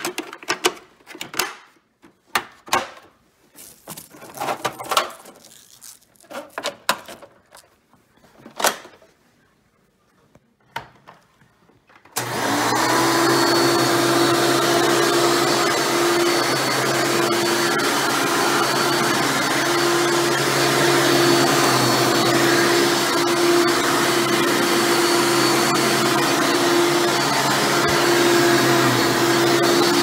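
Scattered clicks and knocks of a vacuum hose and its plastic parts being handled. Then, about twelve seconds in, a Hoover upright vacuum cleaner is switched on and runs steadily with a constant hum.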